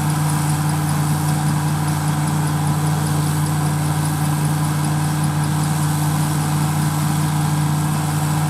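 A farm machine's diesel engine running steadily at one constant speed, a low even hum, with a faint rapid high ticking over the first half.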